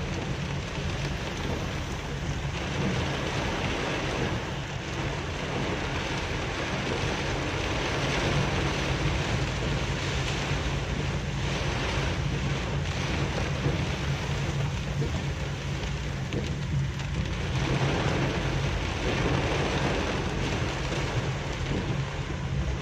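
Heavy rain pouring onto a moving car's roof and windscreen, heard from inside the cabin as a steady hiss, with a steady low hum of the vehicle underneath.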